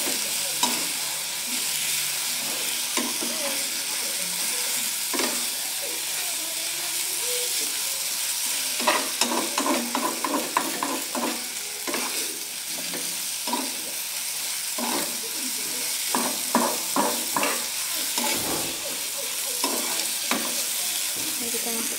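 Rice vermicelli and sliced sausages frying and sizzling in a small black frying pan while a spatula stirs them, scraping and tapping against the pan. The strokes come in quick runs about nine seconds in and again near sixteen seconds.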